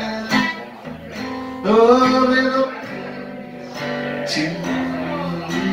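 Acoustic guitar strummed in a slow song, with a man's voice singing a held, rising note about two seconds in.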